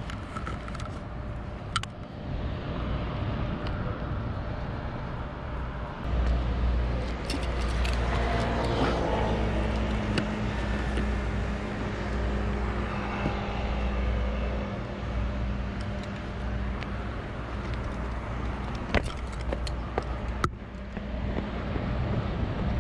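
Road traffic going by: a steady wash of car noise with a deep rumble, one vehicle passing about eight to ten seconds in, and a few sharp clicks.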